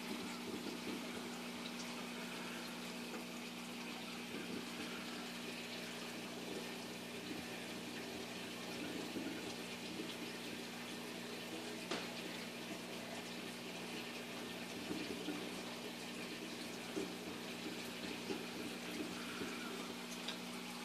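Reef aquarium's circulation running: steady trickling and splashing of moving water over a low, steady pump hum.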